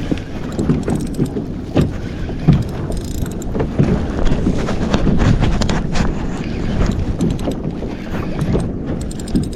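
Water sloshing against a kayak hull with wind on the microphone, broken by scattered knocks and taps.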